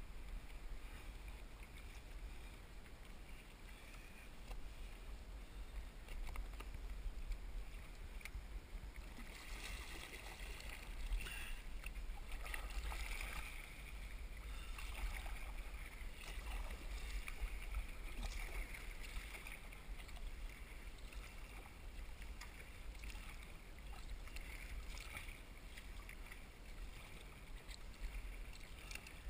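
Water sloshing and splashing against a sea kayak's hull and paddle on choppy water, with a steady low wind rumble on the microphone. The splashing gets busier about nine seconds in.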